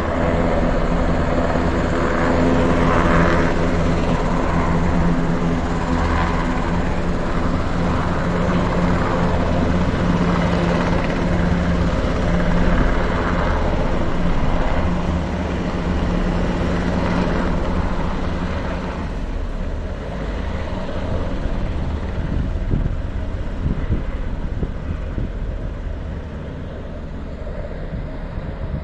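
Two UH-60 Black Hawk military helicopters flying low overhead, their rotors and turbines making a steady droning beat. The sound fades gradually over the last several seconds as they move off.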